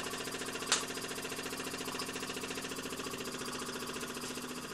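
Model steam traction engine running steadily on its own steam, a rapid, even beat of small exhaust chuffs, with one sharp tick under a second in. Its ports are slightly misaligned, so a little steam escapes at the cylinder support on each exhaust stroke, which the owner says does not stop it working.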